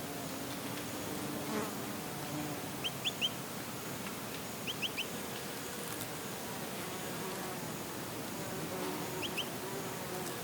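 Bees buzzing in a steady, wavering hum. A small bird gives quick high chirps in three short bursts: three notes, then three more, then two near the end.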